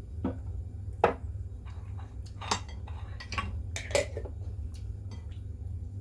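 Plates and utensils clinking and knocking during a meal: a few separate sharp clinks, the loudest about a second in, over a steady low hum.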